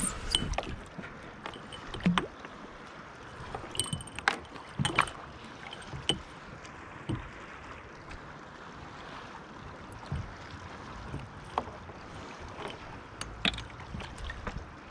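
Scattered light knocks and clicks from fishing gear and a caught fish being handled aboard a plastic kayak, over water lapping softly at the hull.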